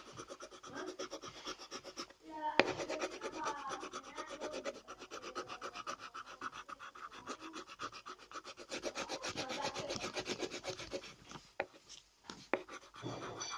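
Coloured pencil rubbing rapidly back and forth on paper, shading in a drawing with fast, even strokes. There is a sharp tap a couple of seconds in. The strokes stop about eleven seconds in, and a few light clicks follow.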